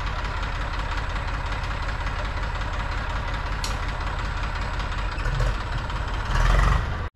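An engine running steadily with an even, fast low chugging. Near the end there is a short, louder burst of noise, and then the sound cuts off abruptly.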